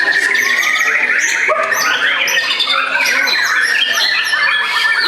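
White-rumped shamas (murai batu) singing without pause: a dense run of whistles, fast trills and rapid repeated notes, with several birds' songs overlapping.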